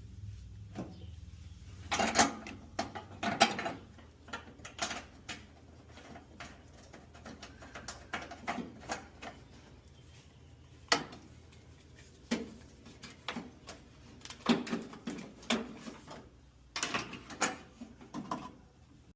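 Irregular clicks, knocks and clatter of hard objects being handled. The loudest clusters come about two seconds in, at three and a half seconds, around eleven seconds, and in the last few seconds.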